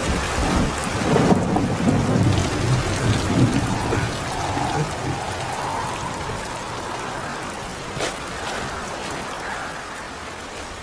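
Heavy rain with rumbling thunder, the rumble strongest in the first few seconds and the storm gradually easing, with a single sharp crack about eight seconds in.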